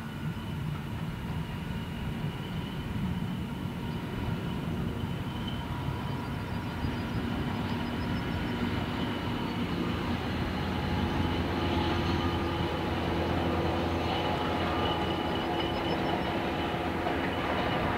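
Diesel-hauled train passing: Class 59 locomotive 59104's two-stroke EMD V16 engine running under load with a Class 20 behind it, then the coaches rolling by on the rails, the rumble growing a little louder in the second half.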